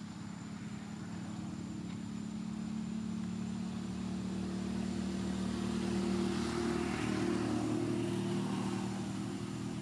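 Engine hum of a passing motor vehicle, growing louder to a peak about six to seven seconds in, then fading.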